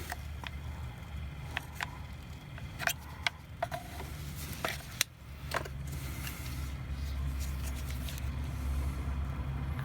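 Scattered sharp clicks and light knocks of plastic parts being handled, over a steady low hum that grows a little stronger from about six seconds in.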